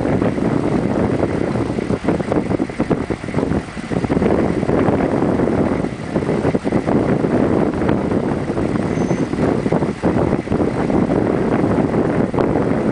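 Wind buffeting the microphone in gusts over the steady rush of a fast glacial river.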